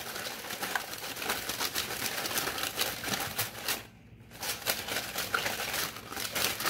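Tarot cards being shuffled by hand: a quick run of light clicks and papery rustling, with a short pause about four seconds in.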